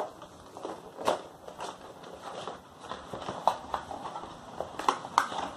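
Cardboard product box being opened and handled by hand: a lid lifted off a gift box, with irregular taps, scrapes and rustles, the sharpest knocks about a second in and near the end.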